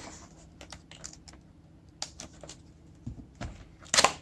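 Scattered light clicks and taps of a cardboard keyboard box being handled and opened, with a louder knock near the end.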